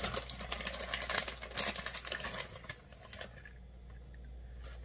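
Plastic bag of shredded cheese crinkling as it is handled and cheese is shaken out of it: a dense run of crackles for about three seconds, then only a few.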